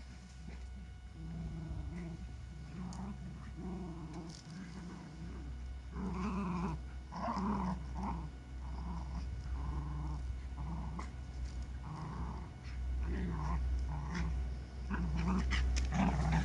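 Lakeland terriers growling in play as they wrestle: a run of short, low growls, one after another, growing louder about six seconds in and again near the end.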